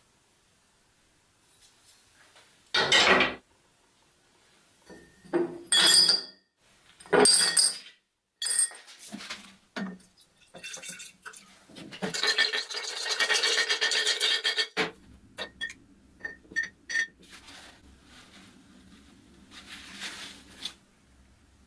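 A glass jar clinking and knocking as small metal parts are handled in it, followed by a few seconds of liquid rust remover (phosphoric acid) being poured into the jar from a plastic bottle.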